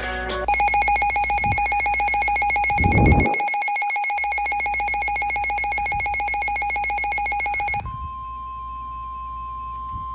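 Emergency alert tones. A harsh electronic buzzing alarm tone pulses rapidly, with a loud low thud about three seconds in. About eight seconds in it gives way to a steady single pure tone, the 1050 Hz NOAA Weather Radio warning alarm that comes before a tornado warning message.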